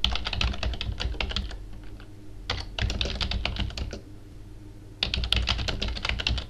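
Typing on a computer keyboard: quick runs of key clicks in three bursts, with short pauses about two and four seconds in.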